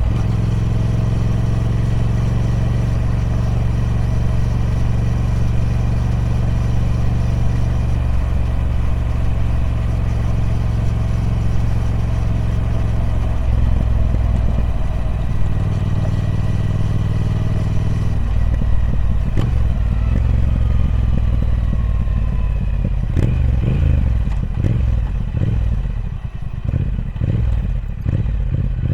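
Triumph Speed Twin 1200's parallel-twin engine running through its stock exhaust, holding a steady note, then dropping lower in steps about thirteen and eighteen seconds in. Over the last few seconds the note turns uneven and pulsing as the level dips slightly.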